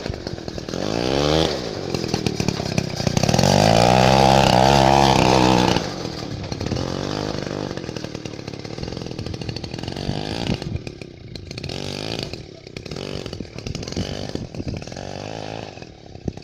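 Two-stroke Druzhba chainsaw engine driving a homemade snowmobile, revving up and down. It climbs about a second in, runs at high revs, loudest, from about three to six seconds, then drops back to lower, uneven revs.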